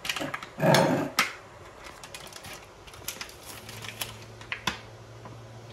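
Scattered light clicks and taps of food and packaging being handled on a kitchen counter, with a brief loud rustle just under a second in. A low steady hum comes in a little past halfway.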